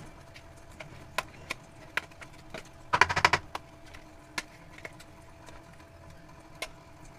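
Scattered clicks and knocks from a steel mixer jar being tapped and scraped to empty churned butter and buttermilk into a plastic bowl, with a quick rattle of taps about three seconds in.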